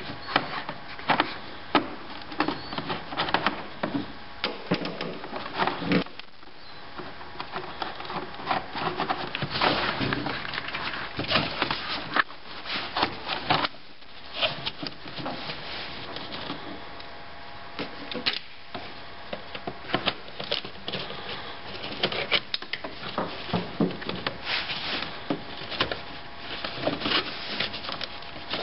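A screwdriver working a hose clamp loose, then rubber hoses being twisted and pulled off their fittings by hand: irregular clicks, knocks and rubbing that go on throughout, with a few short pauses.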